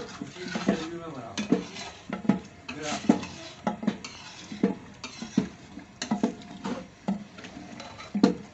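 Metal ladle stirring thick korma in a large aluminium cooking pot, scraping and knocking against the pot about once a second.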